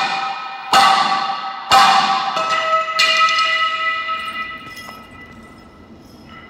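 Bell-like ringing from three sharp strikes about a second apart, each leaving several pitched tones that fade slowly and die away over the last couple of seconds.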